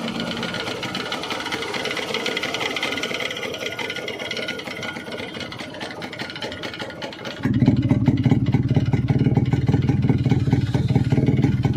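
Yamaha RX100's single-cylinder two-stroke engine running with a busy mechanical clatter, the sound of a damaged crankshaft. About seven seconds in it turns abruptly louder and deeper.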